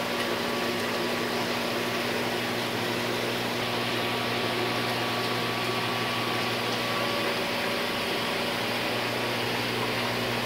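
Steady electric hum with an even hiss of running water over it: the water pump of an aeroponic cloner running and spraying through its nozzles into the reservoir.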